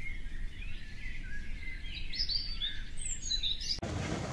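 Birds chirping and twittering over a low steady rumble. Near the end it changes abruptly to louder, even outdoor background noise.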